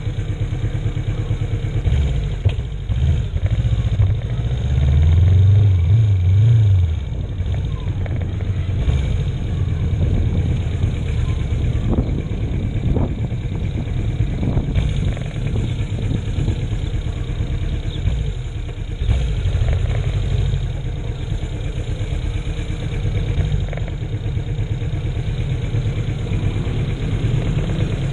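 1981 Yamaha XS400 parallel-twin motorcycle engine ticking over at a stop, then getting louder as it revs and pulls away about four seconds in. It then runs steadily at riding speed.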